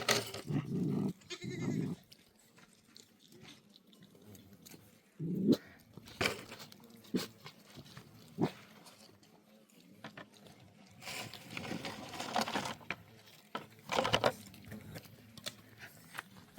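Goats bleating now and then, with a few sharp knocks in between.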